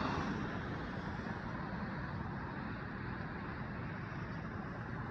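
Steady road traffic noise from passing cars, with one car fading away in the first second.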